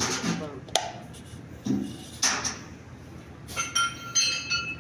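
Light clinks of small hard objects, with a sharp knock about a second in and a few strikes near the end that ring on briefly with clear high tones.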